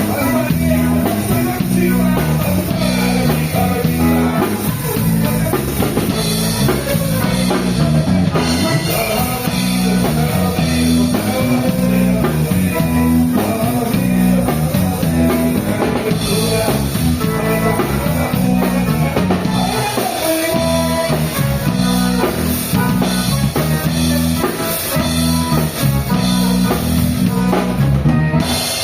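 Live band music: drum kit and guitar playing an upbeat rock number, with singing.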